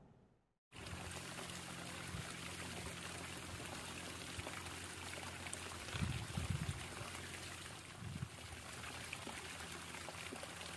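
A brief silence, then a steady hiss of trickling, running water at the water's edge. Low bumps stand out about six seconds in and again near eight seconds.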